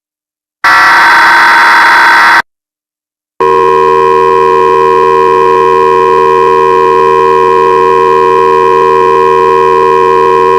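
Electronic alert tones from a mock emergency broadcast. A harsh, loud buzzer blast lasts about two seconds, followed by a second of silence. Then, about three and a half seconds in, a steady, buzzy electronic tone begins and holds.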